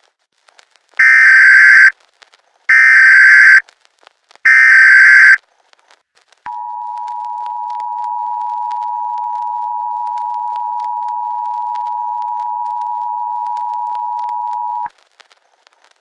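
Emergency Alert System tones: three short bursts of SAME header data, each about a second long, then the EAS two-tone attention signal held steady for about eight seconds before cutting off.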